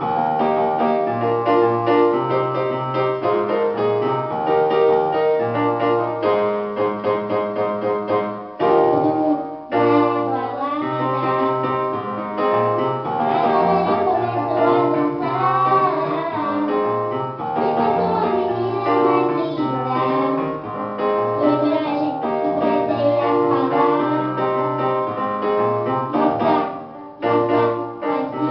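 A girl singing into a microphone, accompanied by an electronic keyboard playing chords over a rhythmic bass line. The music breaks off briefly twice, about nine seconds in and near the end.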